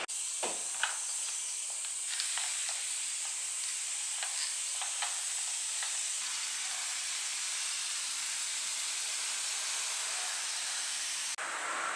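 Food sizzling in a frying pan: a steady hiss with a few small pops in the first few seconds.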